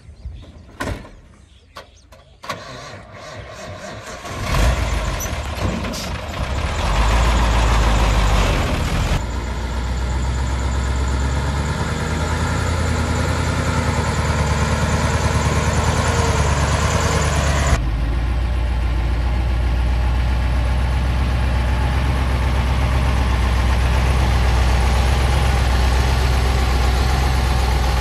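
A few clicks and knocks, then a heavy diesel engine starts about four and a half seconds in, revs up briefly and settles into a steady run.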